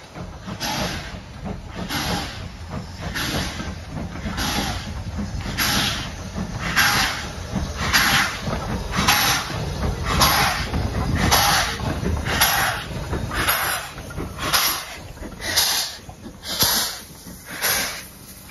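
Double-headed steam train pulling away, BR Standard Class 2 2-6-0 No. 78018 leading a GWR tank engine. Its exhaust beats are steady, between one and two a second, over the rumble of the engines and train and a hiss of steam. The chuffs grow louder as the engines draw near.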